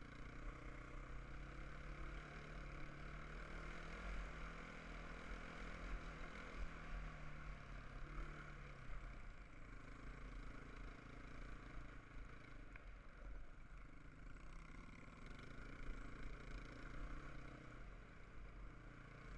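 Sport quad bike's single-cylinder four-stroke engine running at cruising revs over a dirt track, its pitch rising and falling gently with the throttle, under a steady rushing noise.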